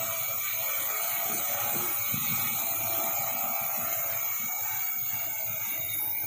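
Quadcopter's electric motors and propellers buzzing steadily as it hovers.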